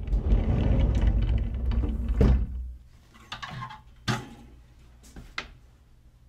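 Closet door sliding open on its track, a loud scraping rumble lasting about two and a half seconds, followed by several short sharp clicks and knocks.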